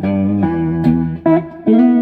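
Electric guitar played through a 1959 Magnatone 260A valve amplifier, a run of picked notes and chords struck about twice a second.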